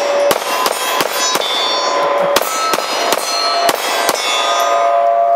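Rapid 9mm pistol fire from a SCCY CPX-2, about three shots a second, with the steel target plates ringing as they are hit. The shots stop about four seconds in and the steel keeps ringing.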